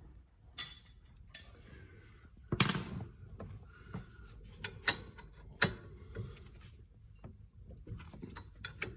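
Wrench working the 15 mm bolts of a Corvette's parking brake caliper: scattered metallic clicks and clanks, the loudest about two and a half seconds in, with a run of small clicks near the end.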